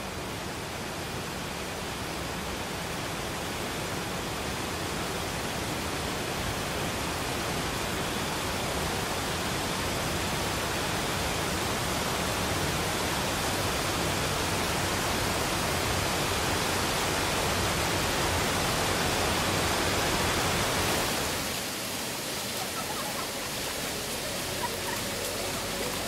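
Steady rushing noise of a waterfall that slowly grows louder, then drops to a softer water sound about 21 seconds in.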